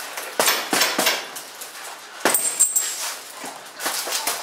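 Boxing gloves punching homemade heavy bags made of stacked tyres wrapped in plastic: sharp thuds that come in short combinations with brief pauses between them.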